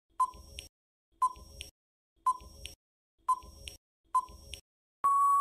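Countdown timer sound effect: five short beeps about one a second, each followed by a fainter click. A long steady beep begins near the end, signalling that time is up.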